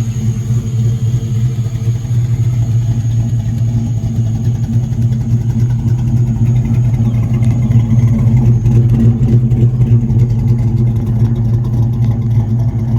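LS V8 engine of a 1966 Chevrolet C10 pickup running with a steady low hum, getting somewhat louder about eight seconds in.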